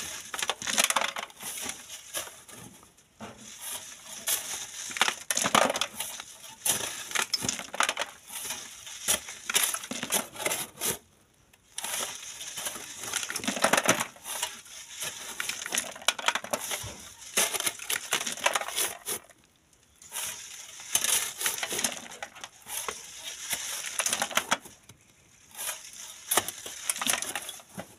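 Shovels scraping and scooping into gravelly sand, with stones clinking and rattling, in irregular strokes broken by a few short pauses.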